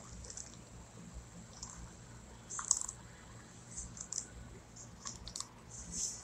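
Faint, irregular clicks of hard-soled dress shoes stepping across a hard floor, the loudest about two and a half seconds in.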